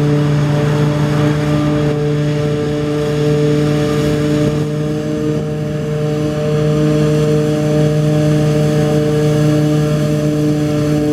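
New Holland FR600 self-propelled forage harvester working under load, cutting and chopping standing green crop and blowing it into a trailer. Its engine and chopper give a loud, steady drone with a few constant humming tones.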